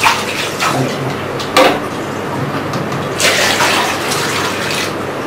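Water being poured from a plastic bowl into a one-litre plastic measuring mug, with a couple of plastic knocks in the first two seconds and a louder splashing pour from about three seconds in.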